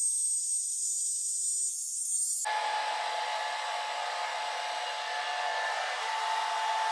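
Hair dryer with a diffuser attachment running steadily while drying wet curly hair. About two and a half seconds in, the sound jumps abruptly to a fuller, lower rush of air with a steady whine.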